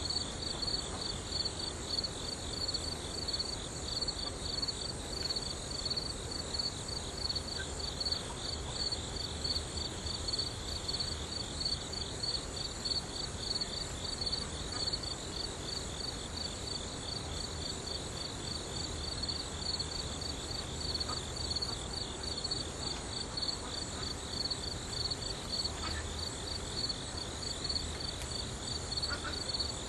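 Steady chorus of chirping insects: a fast, evenly pulsing high-pitched trill that keeps on without a break.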